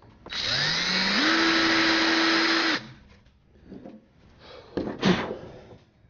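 Cordless drill motor running for about two and a half seconds, its whine rising in pitch as it speeds up, then stepping up to hold steady at a higher speed before it stops. A couple of shorter rattling noises and a sharp click follow about five seconds in.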